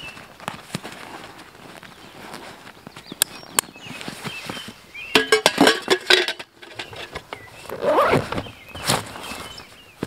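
A nylon backpack being packed and closed by hand: fabric rustling and handling knocks, with a quick run of clicks a little after halfway and a louder rustle near the end.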